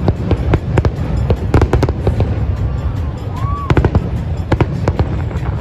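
Fireworks display: sharp bangs of bursting shells, several in quick clusters, over a continuous low rumble, with music playing underneath.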